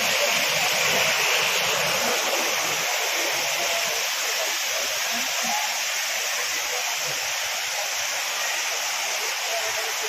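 Stream water rushing and splashing over rock ledges in a steady, unbroken rush.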